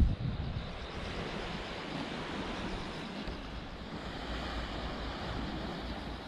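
Steady wash of sea surf on the shore, with wind buffeting the microphone in a ragged low rumble.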